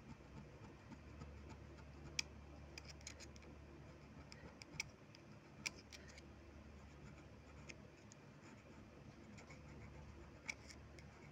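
Faint scratching and scattered light clicks of a small screwdriver tip scraping and tearing away a cardboard shim packed under a sewing machine's feed dog, over a low steady hum.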